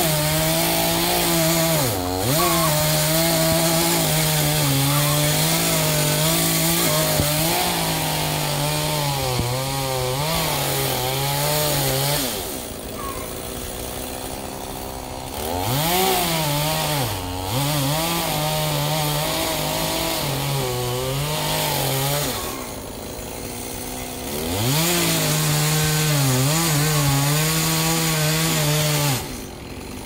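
Chainsaw cutting into a tree trunk at full throttle, its pitch sagging and recovering as the chain bites. Twice in the middle it drops back to idle for a few seconds before revving up to cut again, and it drops to idle once more right at the end.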